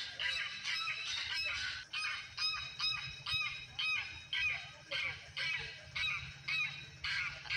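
Honking, goose-like calls repeating about one and a half times a second, several overlapping, over a low steady hum.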